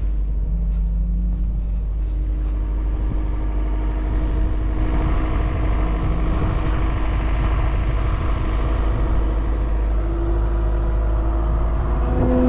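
Vehicle engine running steadily with a low rumble; its pitch rises a little near the end.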